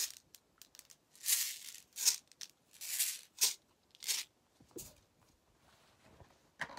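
Rustling and rattling of small objects being handled and rummaged through, in about half a dozen short, hissy bursts with quiet gaps between them.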